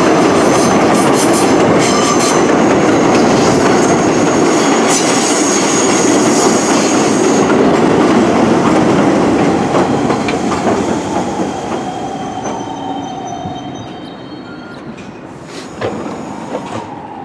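Bombardier R62A subway train running along a curved elevated track and pulling away: steel wheels squealing high on the curve over a dense clatter of wheels on rail. The noise is loudest for the first half, then fades away, with a few sharp clicks near the end.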